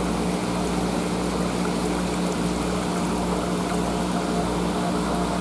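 Live-bait tank's pump running: a steady electric hum with a continuous rush of moving water.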